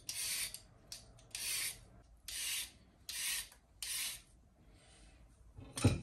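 Julienne peeler scraping down a raw carrot in five rasping strokes, about one a second. Then a single loud knock near the end.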